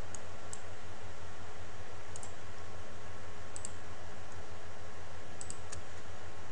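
A few light computer mouse clicks, about seven scattered irregularly and some in quick pairs, over a steady low hum and hiss.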